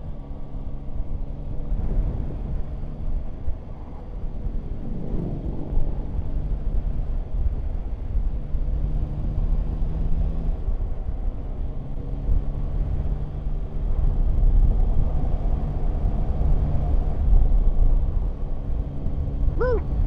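Yamaha Tracer 9 GT's three-cylinder engine running on the road under heavy wind rumble on the microphone. Its note changes pitch a few times as the revs rise and fall.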